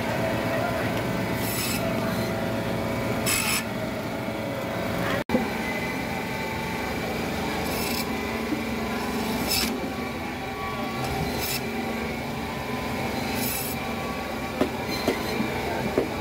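A blade scraping and rubbing over a big fish, short rasping strokes every one to two seconds over a steady market din.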